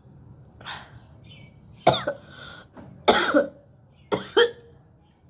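A woman with a chest cold coughing up phlegm: a softer throat-clearing cough, then three hard, phlegmy coughs about a second apart.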